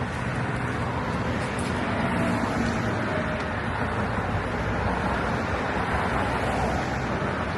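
Steady traffic and road noise: an even rumble with hiss, no single event standing out.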